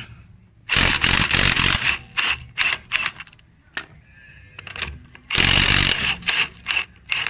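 Cordless impact wrench hammering in bursts: a long burst of over a second, a string of short trigger pulls, then another long burst about five seconds in, followed by more short pulls.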